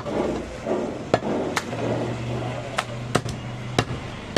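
Butcher's knife cutting goat meat and striking a wooden log chopping block: about six sharp knocks at irregular intervals.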